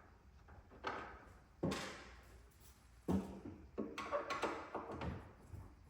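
Five or six separate knocks and clunks as screws are worked out of a wooden organ console's back panel by hand.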